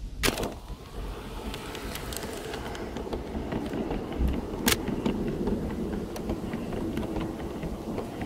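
A garden-scale model train of passenger coaches rolling past close by, its wheels rumbling on the track with many irregular metallic clicks, two of them sharper and louder.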